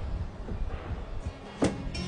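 Quiet background music, with a single sharp knock near the end.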